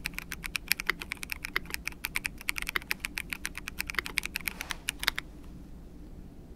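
Monstargear Aqua 67 clear-housing mechanical keyboard being typed on quickly, a fast run of key clacks that stops about five seconds in.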